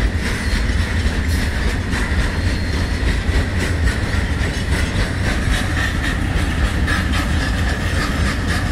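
A freight train of loaded BTPN oil tank wagons rolling past close by. The wheels make a steady rumble on the rails, with repeated clicks over the rail joints and a thin, steady high whine.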